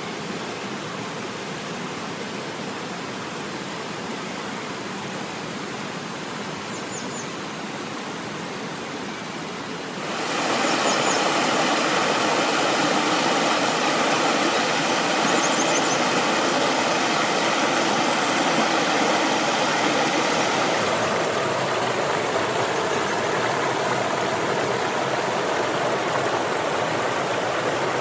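Mountain stream rushing over rocks, a steady rush of water that gets louder about ten seconds in. A small bird gives short high calls in groups of three a few times.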